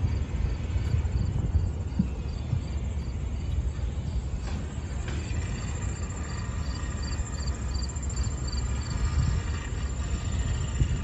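Wind rumbling on the microphone, steady and low. A faint high chirp repeats about twice a second through the middle of it.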